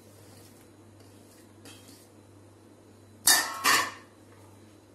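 Two sharp metal clinks about half a second apart, a little past three seconds in: a steel spoon knocking against steel dishware as chopped fruit is scraped off a plate into a pan of custard.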